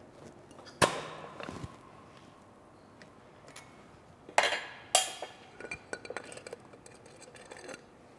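Steel transmission parts and hand tools clinking together as a pressing tube and pliers are handled on a freshly pressed synchronizer and gear: a sharp clink about a second in, two more close together about halfway through, and lighter taps in between.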